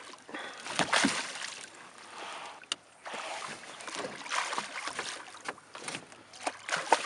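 Water splashing and sloshing as a hooked steelhead thrashes at the surface against the side of a wooden boat, in uneven surges, with one sharp click about two and a half seconds in.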